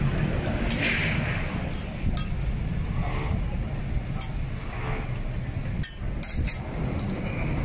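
Busy street ambience: a steady low traffic rumble with a few sharp clinks and taps scattered through it.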